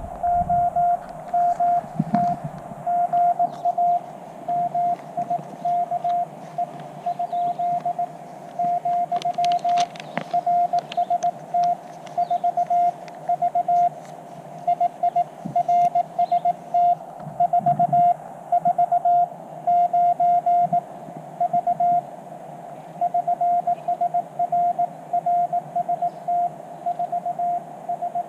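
Morse code (CW) from a portable ham radio transceiver: a single-pitch beep keyed on and off in dots and dashes throughout, over faint band hiss.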